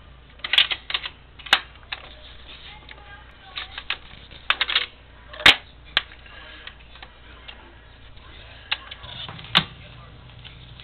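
Garrard automatic record changer running its change cycle: a string of mechanical clicks and clunks as the start lever is pressed, a 45 rpm single drops off the spindle onto the platter and the tonearm swings over and lowers onto the record. The loudest knock comes about five and a half seconds in, over a faint steady motor hum.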